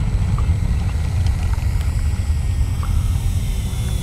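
Twinstar RC plane's twin electric motors giving a faint steady high whine as it flies low, under a loud, steady low rumble of wind on the microphone.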